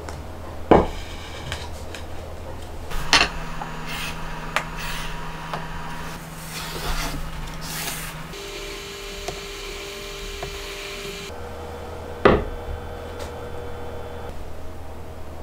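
Workshop handling sounds: several sharp wooden knocks and clunks as workpieces and jig parts are set down or clamped on a bench, the loudest about a second in and near the end, with quieter rubbing and clicks between.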